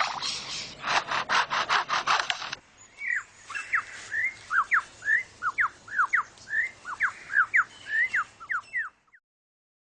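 Superb lyrebird mimicking chainsaws: a quick series of rasping, saw-like strokes, then after a short gap a run of clear, falling whistled notes, about two a second, that stops about nine seconds in.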